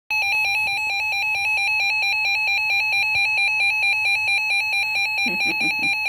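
Reecom weather alert radio's built-in alarm beeping at a Severe Thunderstorm Warning: a loud, high, rapidly pulsing beep, about eight pulses a second, held steady in pitch.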